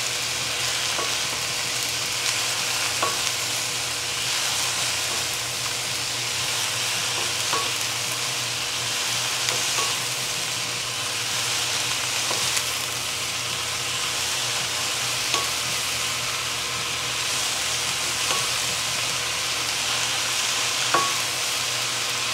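Sliced Napa cabbage sizzling steadily in oil in a ceramic nonstick pan as it is stir-fried with a wooden spatula. A few light clicks come several seconds apart as the spatula knocks the pan.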